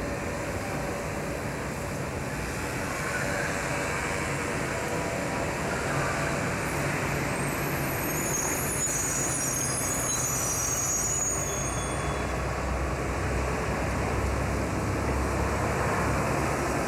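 Street traffic noise as an articulated electric trolleybus pulls out and passes close by. A high hiss comes about halfway through, and the low rumble grows as the bus draws near at the end.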